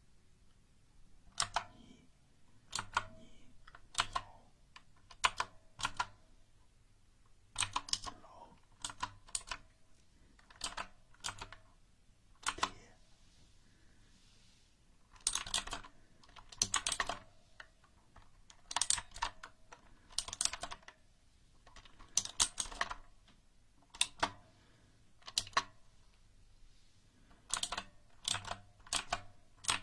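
Mechanical keyboard keys being pressed in short, irregular runs of clicks, with brief pauses of a second or two between runs.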